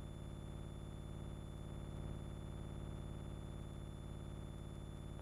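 Steady low electrical hum with a few thin, constant high tones, unchanging throughout and without any sound from the scene itself. This is the background noise of a transfer of silent-era archival film.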